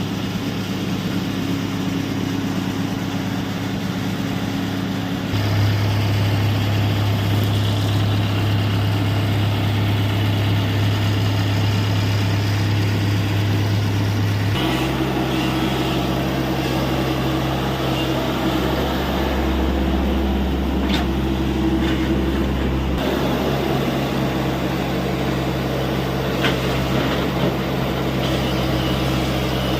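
TATA Hitachi EX70 excavator's diesel engine running steadily, its note stepping to a new pitch and loudness a few times as the hydraulics take up and release load while it digs.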